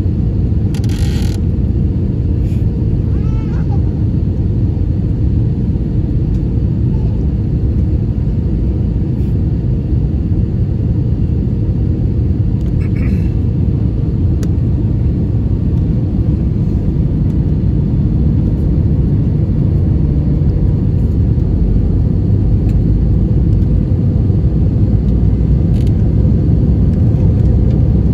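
Airbus A320 cabin noise in flight, heard from a window seat over the wing: a steady low rumble of engine and airflow with a faint steady hum, getting slightly louder in the second half.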